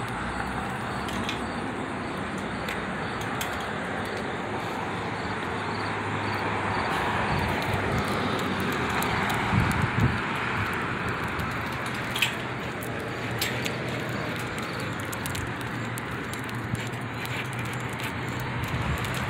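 Road traffic: a steady rushing of passing cars that swells around the middle, over a low engine hum, with a few light clicks.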